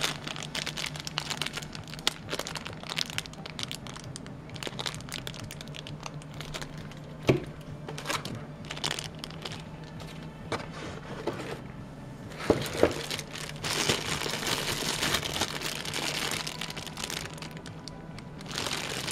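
Clear plastic bags crinkling and rustling as bagged cables and a power adapter are handled and unpacked, with a few sharp knocks of packaging being moved; a steady low hum runs underneath.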